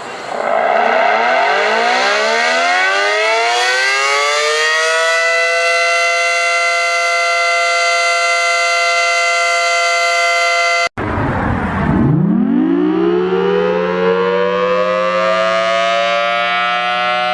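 Tornado warning sirens. The first winds up from a low pitch to a steady high chord, holds it, then cuts off abruptly about 11 seconds in. A second siren then winds up again from low and levels off near the end.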